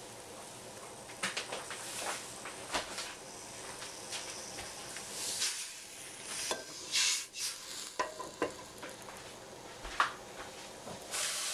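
Sugar being poured into a stainless steel pot, with short rushing hisses of pouring about halfway through and again near the end, and scattered clinks and knocks of a measuring cup and utensils against the metal pot.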